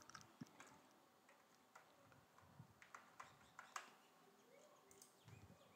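Near silence: faint room tone with several scattered faint clicks from a computer mouse.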